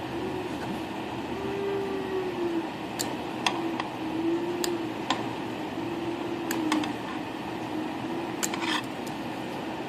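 Electric nail file drill running on acrylic nails: a steady whir whose pitch wavers and dips in short arcs as it is pressed on and lifted off the nail, with a few sharp clicks.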